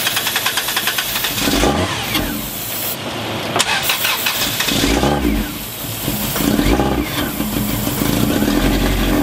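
1994 Subaru Legacy's flat-four engine cranked by the starter after four years sitting, with starting fluid sprayed into the air intake. It fires and sputters in short bursts several times but does not keep running.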